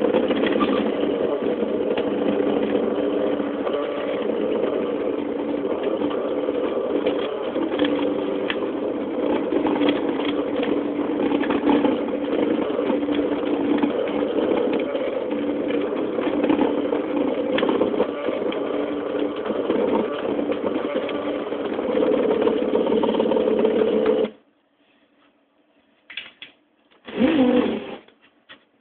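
CNC drawing machine's motors running as it moves, a steady mechanical hum with tones that shift and break off as it changes direction. It stops suddenly about four seconds before the end, followed by two short noises.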